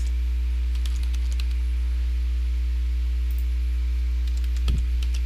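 Faint clicks of a computer keyboard being typed on, over a steady low electrical hum. A single soft low thump comes near the end.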